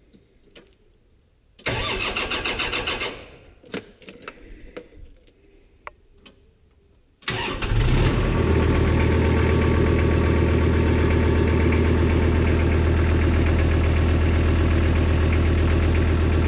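Tractor engine cranked by its starter for about a second and a half without catching. A few seconds later it is cranked again, starts, and settles into a steady idle.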